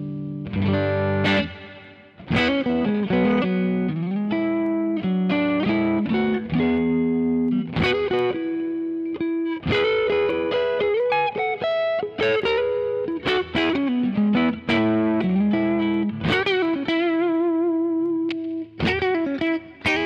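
Electric guitar, a pink paisley Fender Telecaster, played through a Wampler Faux Spring Reverb pedal: single-note lead phrases with held notes, string bends and wavering vibrato, with a little drive in the tone.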